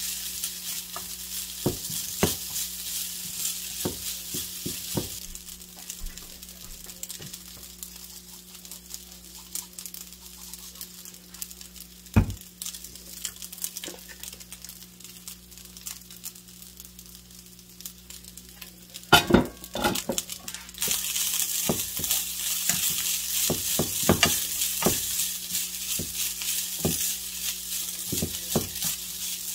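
Lemon rice sizzling in a frying pan while a black slotted spoon stirs and scrapes it, with repeated knocks of the spoon against the pan. The sizzle eases off through the middle and comes back stronger about twenty seconds in, just after a quick burst of clattering.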